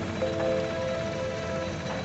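Background music: a melody of held notes that step between pitches, over a steady low rumbling noise.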